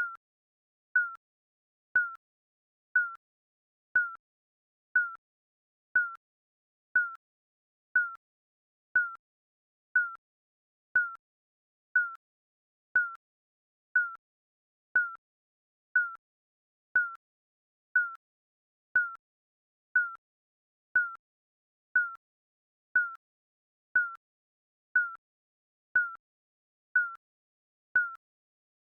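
Digital countdown timer beep: a short, identical electronic beep once every second, marking each second as it counts down.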